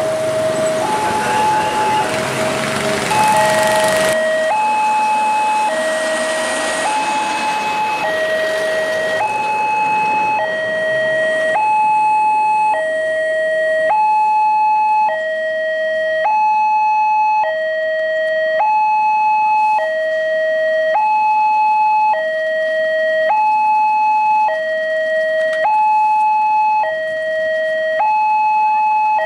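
Railway level-crossing warning alarm sounding: an electronic two-tone signal switching between a low and a high tone about once a second, warning that the barriers are closed for a train. The rumble of a passing train dies away over the first few seconds.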